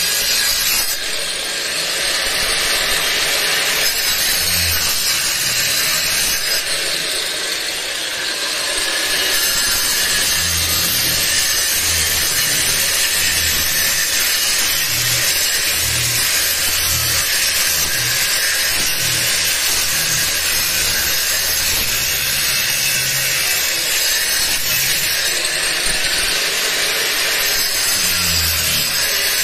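Angle grinder with a round disc grinding a textured render wall, running steadily with a harsh abrasive noise; it eases off briefly about a second in and again around eight seconds.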